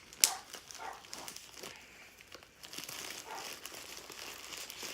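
Packaging crinkling and rustling as it is handled and pulled at in an effort to open it, with a sharp click about a quarter of a second in. The package is hard to get into.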